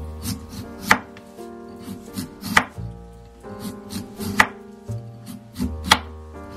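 Kitchen knife slicing through a daikon radish onto a wooden cutting board: four sharp knocks as the blade meets the board, about one every second and a half. Background music plays underneath.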